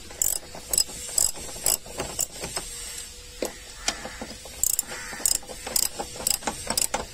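Hand socket ratchet wrench clicking as its handle is swung back and forth, running a dashboard frame bolt in. The clicks come in two runs of a few a second, with a quieter spell in the middle.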